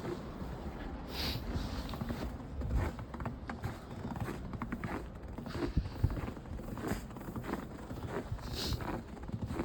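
Footsteps crunching through snow, an irregular series of steps.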